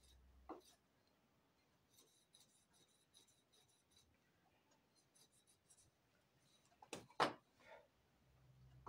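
Faint scratchy rubbing and light ticks of hand tools being handled on a wooden workbench, then a few knocks about seven seconds in, one of them a single sharp knock that is the loudest sound, as a tool is set down and a carving gouge picked up.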